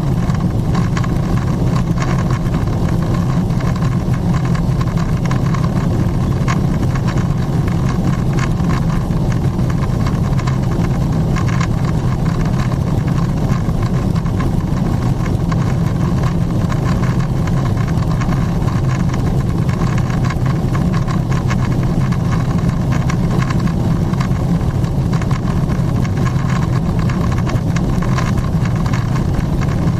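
Steady in-flight cabin noise of a Boeing 777-300ER climbing out: a low drone from its GE90-115B turbofans at climb thrust, mixed with the rush of air past the fuselage.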